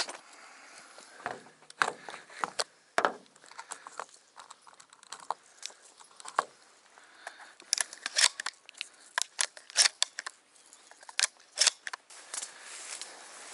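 Irregular sharp clicks, knocks and clatter of hunting gear being handled by hand, with a busier run of sharp clicks in the second half.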